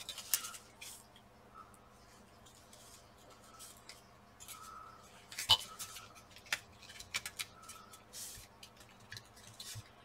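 Scattered light clicks, taps and scrapes of a graphics card's metal heatsink and plastic fan shroud being handled and pressed together, with one sharper click about halfway through.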